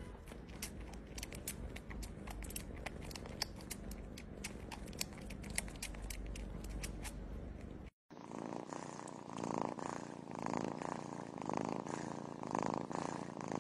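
Domestic cat purring while suckling on a finger, with quick wet sucking clicks over a steady low purr. After a short break, a mother cat nursing kittens purrs in a rhythmic in-and-out pulse, about two pulses a second.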